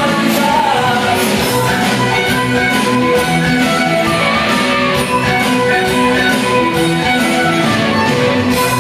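Loud dance music with a prominent guitar line playing over a nightclub sound system.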